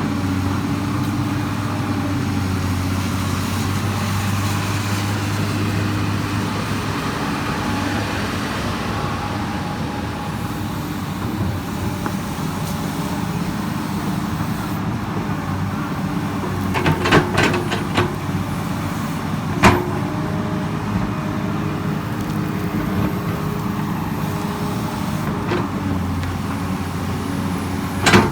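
Komatsu PC200 excavator's diesel engine running steadily, with a cluster of sharp metallic clanks about two-thirds of the way through and another near the end.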